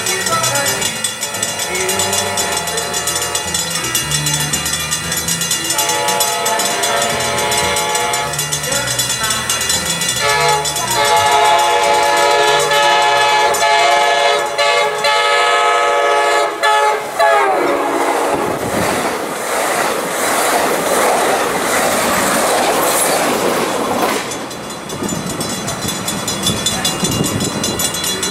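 A train's air horn sounds a chord in several long blasts as it approaches. The horn stops and the train passes close by, with a loud rush of wheel-on-rail noise for several seconds.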